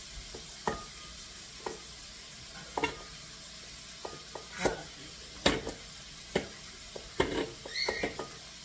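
Cheese being grated on a flat metal grater held in a stainless steel bowl: irregular rasping strokes and knocks of the grater against the bowl, roughly one a second.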